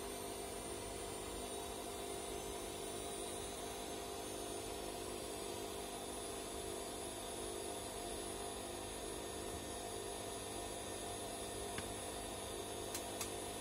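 Bosch Classixx 6 front-loading washing machine running its wash, the motor turning the drum with a pillow through sudsy water: a steady hum with several steady tones. A few short clicks come near the end.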